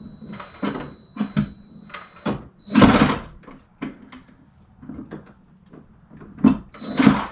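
Irregular knocks, scrapes and rattles of hand-tool work on a wall and its pipework, the loudest a longer scraping burst about three seconds in and another near the end.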